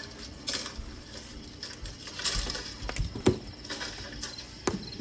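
A plastic seasoning shaker shaken over a beef roast in an enamel roasting pan, with short rattling shakes as the seasoning patters down. A few light knocks follow in the second half.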